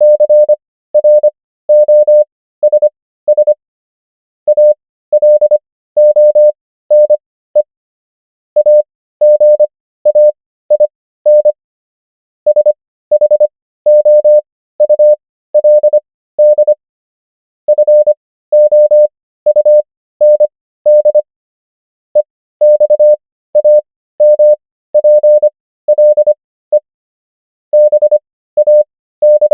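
Morse code practice tone: a single pure beep a little above 500 Hz keyed into dots and dashes at 25 words per minute character speed. Farnsworth spacing stretches the gaps between characters and words to an overall 15 words per minute, so the beeps come in clusters spelling out common English words.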